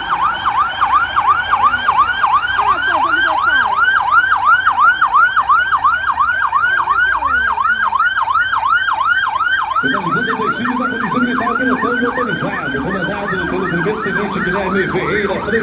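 Military police vehicle siren in fast yelp mode, its pitch sweeping up and down about three times a second without a break. A lower, rougher sound joins about ten seconds in.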